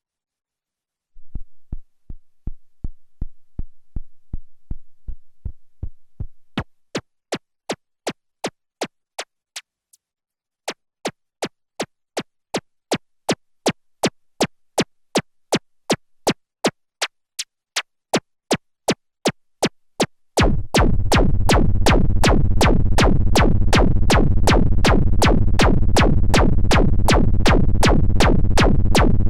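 Erica Synths Perkons HD-01 drum synthesizer playing a sequenced pattern of short, evenly spaced percussive hits, about two to three a second. About two-thirds of the way in, a much louder, dense noisy layer comes in under the hits.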